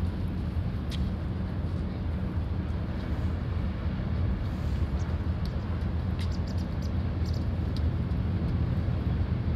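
Steady low outdoor rumble with a few faint ticks.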